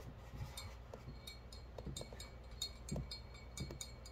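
A paintbrush being rinsed in a glass jar of water, clinking against the glass: a run of faint, light clinks, about three a second, some with a short glassy ring, and a few soft knocks.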